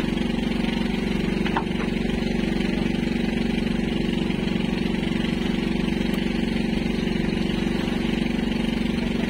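Outrigger fishing boat's engine idling steadily, an even fast chugging that holds the same pitch throughout.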